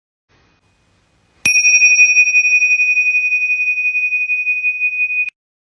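A bell struck once about a second and a half in, ringing one high, clear tone with a fast wobble. It sustains almost without fading, then cuts off abruptly near the end.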